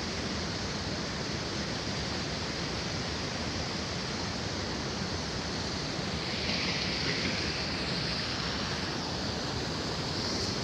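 Steady rushing roar of a river waterfall, with a little more hiss from about six seconds in.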